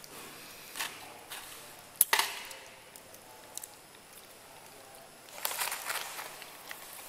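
A puppy nosing and mouthing at a sausage in its plastic casing, with a sharp knock about two seconds in as the sausage is set down on the tile floor, and a short spell of rustling nibbles near the end.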